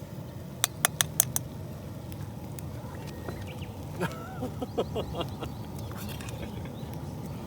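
Five quick, sharp clinks of utensils against metal cookware about a second in, then a string of short pitched vocal sounds around four to five seconds, over a low steady outdoor rumble.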